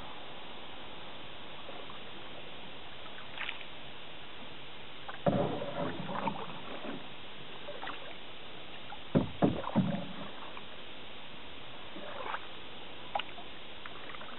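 Canoe paddle strokes in calm water: the blade splashing and dripping as it dips and pulls, in irregular bursts with the loudest strokes about nine to ten seconds in, over a steady hiss.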